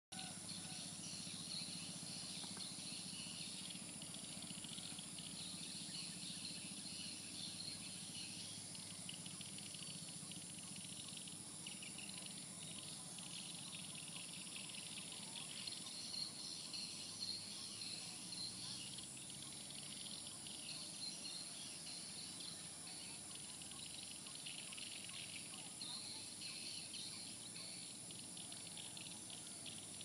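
Faint chirping and twittering of birds and insects, swelling and fading, over a steady high-pitched whine.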